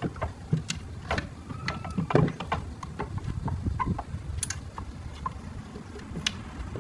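Irregular small clicks and taps of hand tools and small plastic parts being handled during a repair, over a steady low rumble.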